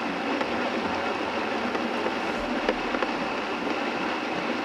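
Vitamix blender motor running steadily at a medium speed, its blade blending bananas and water into a smooth purée with a tamper pressed down into the jar.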